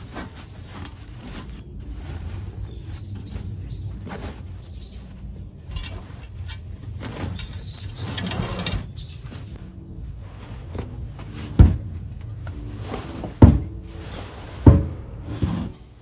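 Small birds chirping, with three sharp, loud knocks in the second half.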